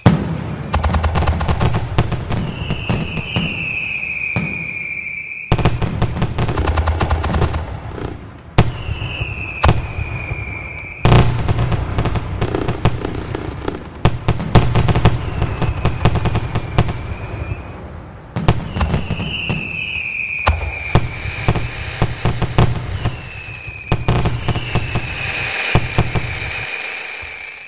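Fireworks: dense crackling and bangs over a low rumble, with a whistle that falls in pitch every few seconds.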